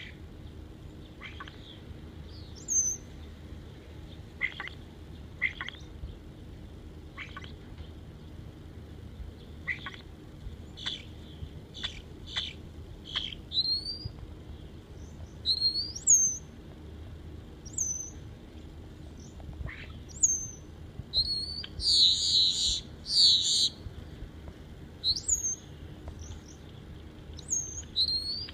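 Starling singing and mimicking other birds and sounds: short falling whistles scattered through the first half, then a run of rising, upward-flicking whistles every second or two, with two loud harsh bursts a little past two-thirds of the way through.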